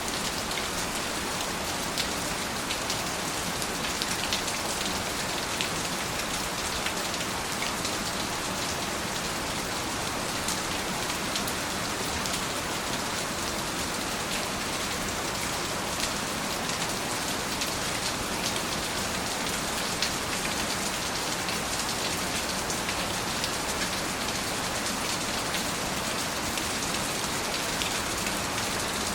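Steady rain falling and pattering on surfaces, with scattered individual drops ticking through the even hiss.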